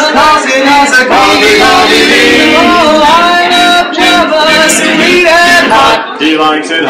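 Male barbershop quartet singing a cappella, four voices in close harmony.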